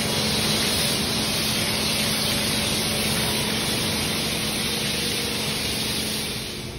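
Pressure washer spraying water against a car's underbody: a steady loud hiss with a faint low hum under it, easing slightly near the end.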